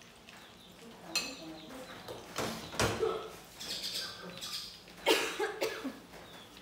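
A girl coughing a few times into the apron held over her mouth, in short sudden bursts.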